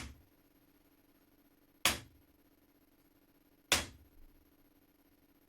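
Hammer striking a pin punch three times, sharp blows about two seconds apart, the first right at the start. Each blow has a short ring. The blows are driving a stubborn, rusted pin out of an antique flintlock shotgun's wooden stock.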